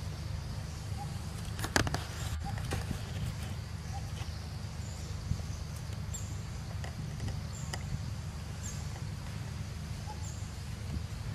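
Outdoor ambience: a steady low rumble with short, faint high chirps repeating every second or so. A brief crackle of clicks about two seconds in is the loudest sound, with a few fainter clicks later.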